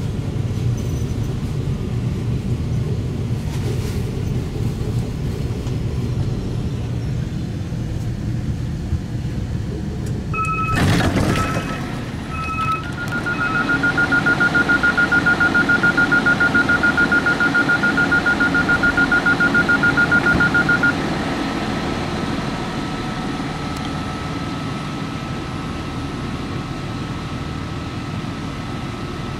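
Régiolis B 84500 bi-mode train standing at a platform with its diesel engines idling. About eleven seconds in, a brief rush of noise and a few short beeps come, then a rapid door-closing warning beep sounds for about seven seconds, signalling departure. A steady high tone continues over the idling hum afterwards.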